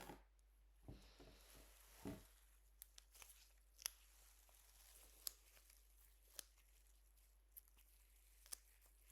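Faint close-up handling of sticky adhesive steri strips with gloved fingers: soft crinkling and peeling early on, then a series of single sharp sticky clicks roughly once a second.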